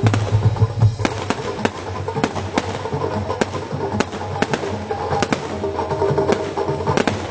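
Music playing with steady held tones, over frequent irregular sharp cracks and bangs of fireworks, several a second.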